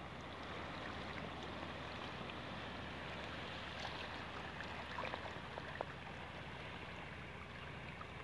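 Small sea waves lapping and washing over a rocky shore, a steady watery wash with a few faint ticks of trickling water about halfway through, over a low steady hum.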